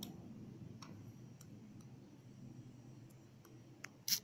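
Computer mouse button clicking a few times at irregular intervals, with the sharpest and loudest click near the end, over a faint low background hum.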